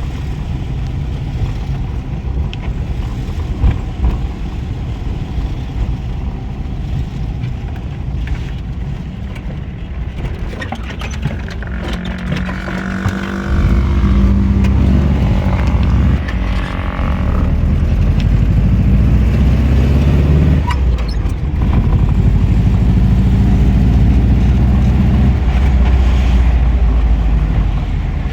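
Volkswagen Kombi van's engine running on the road, a steady low rumble that gets louder about halfway through, its pitch rising and falling as the van speeds up and changes gear.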